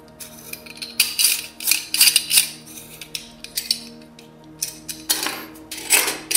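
Small metal parts of an oil-lamp burner clicking and clinking as they are fitted together by hand, with a louder metal knock near the end as the burner is set down on the wooden bench. Background music with sustained notes plays underneath.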